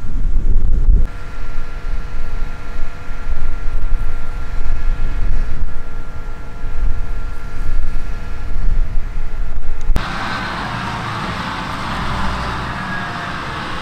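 Large harvest machinery running: steady engine tones over an uneven low rumble. About ten seconds in, the sound cuts abruptly to a steadier, quieter hiss of machinery.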